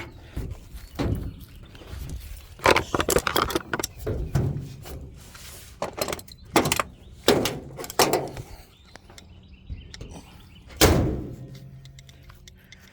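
A string of knocks, clicks and clatter from handling things around the car, with a single loud thump about eleven seconds in that rings out briefly.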